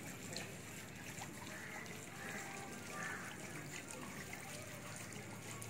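Faint, steady trickle of water.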